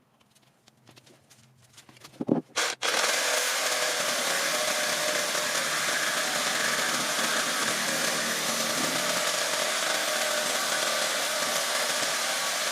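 A few knocks, then about three seconds in a machine starts abruptly and runs steadily with a loud, even rushing noise.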